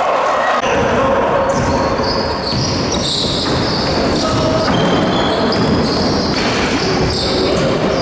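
Basketball game sounds in a gym: the ball bouncing on the court, sneakers squeaking in short high chirps, and players calling out, all echoing in the hall.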